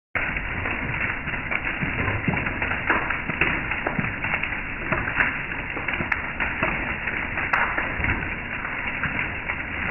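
Hail falling on a wooden deck and a metal mesh patio table: a dense, steady patter of many small taps and clicks.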